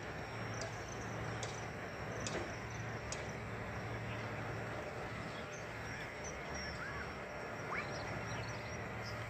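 Steady low hum under a wash of open-air noise, with a few sharp ticks in the first few seconds and brief chirping bird calls in the second half.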